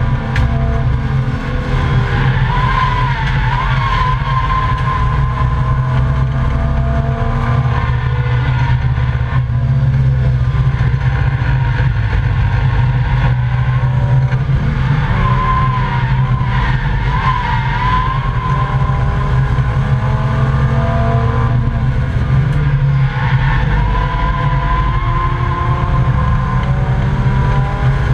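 Volvo 855 race car's inline five-cylinder engine, heard inside the cabin, running hard at racing speed, its pitch rising and falling with throttle and gear changes. A wavering high tyre squeal comes in three times through corners, about three seconds in, around fifteen seconds and again from about twenty-three seconds.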